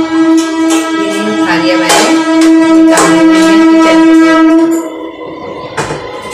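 A single long held musical note, horn-like, holds steady for about five seconds and then stops, with a few sharp metallic clinks of steel plates being handled.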